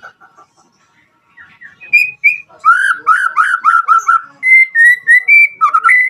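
White-rumped shama (murai batu) singing. Its loud whistled song starts about two seconds in: two short high notes, a quick run of about eight rising-and-falling notes, then several level whistles.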